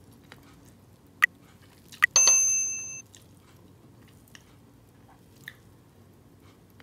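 A single bright bell-like ding about two seconds in, ringing for under a second before fading, with a couple of sharp clicks just before it.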